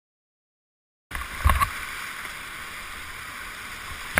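Whitewater river rushing steadily, starting abruptly about a second in, with two dull low thumps, one shortly after it starts and one near the end.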